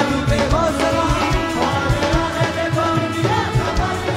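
Hindi Christian worship song playing: a steady drum beat under a gliding melody line.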